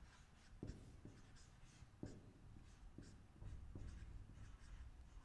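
Whiteboard marker writing on a whiteboard: a faint series of short strokes and taps, about two a second.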